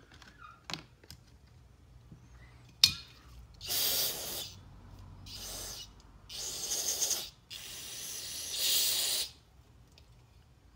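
Aerosol cleaner sprayed onto a brake banjo bolt in four short bursts, with a single sharp click about three seconds in, before the first burst.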